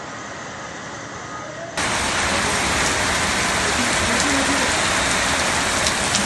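Heavy rain pouring down, a dense steady hiss, which jumps abruptly louder about two seconds in.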